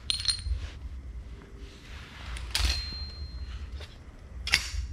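Small metal brackets clinking as they are handled and set down: three sharp clicks, the first two leaving a short high metallic ring.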